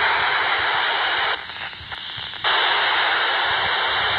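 Polmar DB-4 handheld radio's speaker hissing with FM static, loud, with a quieter dip about a second and a half in before the hiss comes back at full level. The receiver's squelch is open on a noisy, weak signal.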